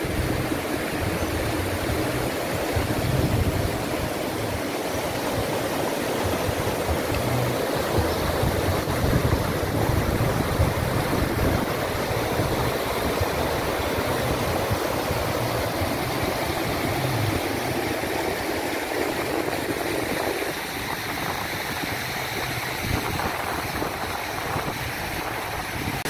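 Water rushing over rock slabs in shallow rapids, a steady rushing that drops slightly about twenty seconds in.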